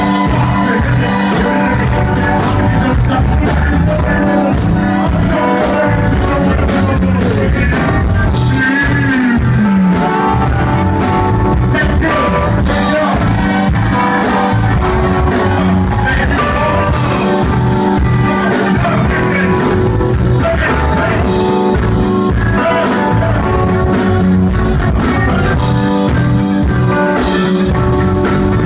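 Live band playing loud, steady music with electric bass and drums, a voice singing over it at times.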